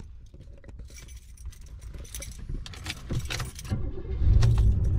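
Keys jangle and small clicks come from the 1985 Cadillac's ignition. About four seconds in, the car's engine comes up loud and settles into a steady low running hum.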